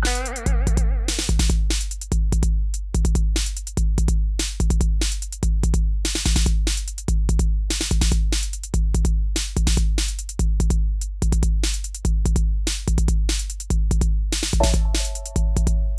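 Background electronic music: a steady drum-machine beat with a heavy bass under each hit, and a melody line that plays at the start and comes back near the end.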